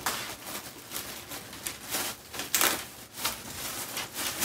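Clothing and a tote bag rustling as a hoodie is pulled out and unfolded: several short rustles, the loudest about two and a half seconds in.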